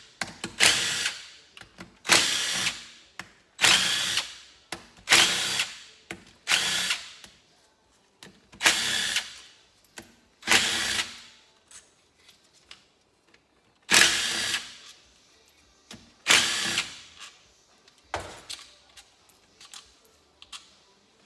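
Dewalt cordless drill backing out the 8 mm bolts around an ATV engine's stator cover in about a dozen short bursts, each under a second, with brief pauses between them.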